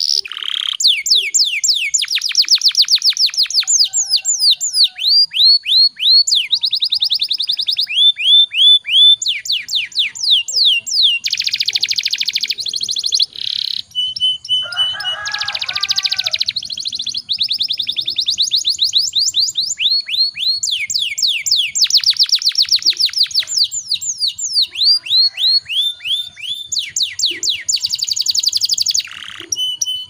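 A domestic canary singing a long, continuous song of rolling trills: fast runs of short repeated sweeping notes, alternating with buzzy rattles and a few brief steady held notes, with only short breaks.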